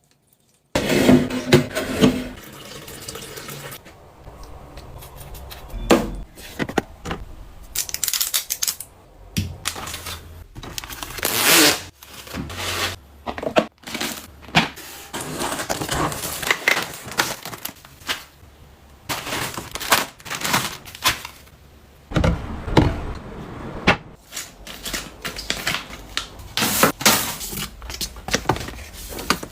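Containers and packaging being handled and set down: an irregular run of clicks, knocks and rustles.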